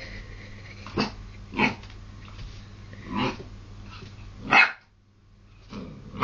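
English springer spaniel puppy barking at its own reflection in a mirror: four short single barks spread over a few seconds, the last one the loudest.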